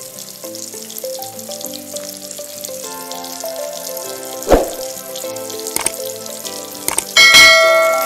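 Milkfish trimmings deep-frying in oil, with a steady sizzle under a background music melody. A few sharp clicks come about halfway through, and near the end a loud bell ding rings out and fades: a subscribe-button sound effect.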